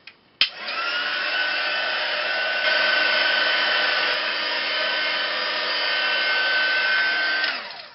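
Craft heat gun switched on with a click, its whine rising as the fan spins up, then running steadily with a loud blowing noise for about seven seconds and winding down near the end. It is drying the wet mist on a mixed media canvas.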